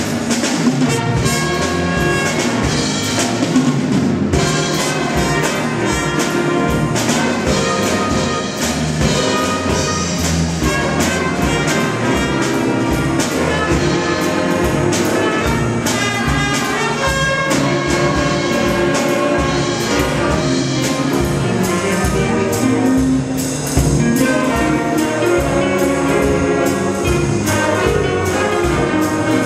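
School jazz band playing live: saxophones, trumpets and trombones over electric guitars, bass guitar, drum kit and keyboard, with a steady beat.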